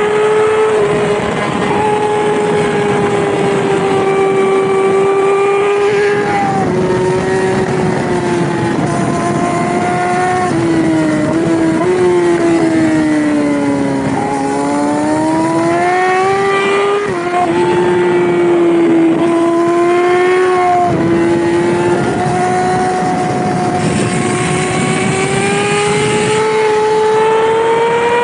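Yamaha R6 600cc inline-four race bike engine running at high revs. The pitch holds mostly steady, sinks and climbs again around the middle, and steps quickly up and down a few times as gears change.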